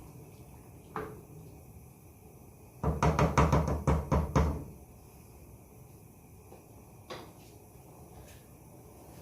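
A quick run of hard knocks and clatter in a kitchen, about eight in under two seconds, starting about three seconds in. There are single knocks before and after.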